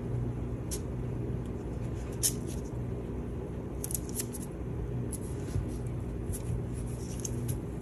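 Steady low hum with scattered faint ticks and rustles as hands press and smooth silicone putty against parchment paper.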